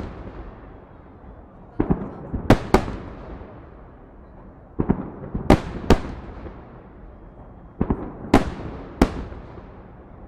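Fireworks salute going off in volleys about every three seconds. Each volley is a cluster of two or three sharp bangs with an echoing rumble after them.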